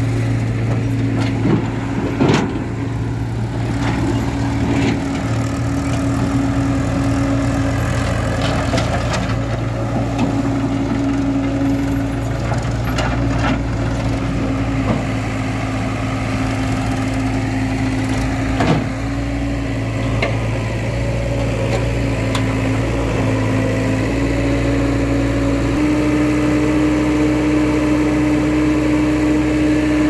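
Heavy diesel engine running at a steady idle, its note stepping up slightly twice near the end, with a couple of sharp knocks about 2 and 19 seconds in.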